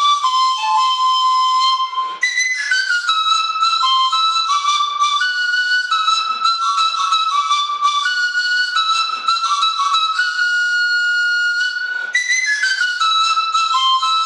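Chili zampoña, the small high-pitched Andean panpipe, played solo: a breathy huayno melody of short stepping notes, with one long held note about ten seconds in.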